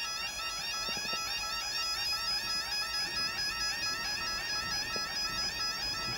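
Level crossing warning alarm sounding with the barriers down: a continuous electronic two-tone warble, repeating quickly and evenly.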